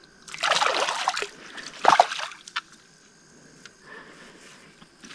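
Water splashing loudly twice at the surface, about a second in and again around two seconds: a hooked small carp thrashing as it is brought in to the bank.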